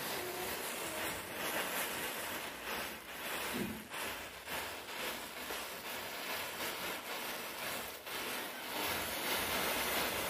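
Rows of safety matches catching one after another in a chain reaction: a continuous crackling hiss of match heads flaring and burning.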